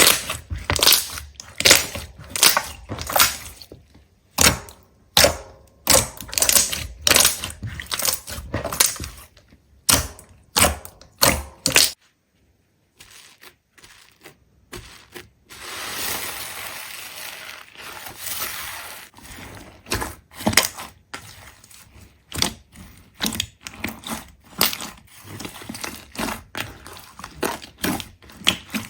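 Rapid sharp cracks and crunches of something brittle being crushed or broken. They stop for about a second near the middle, followed by a few seconds of steady rustling hiss, then more cracks.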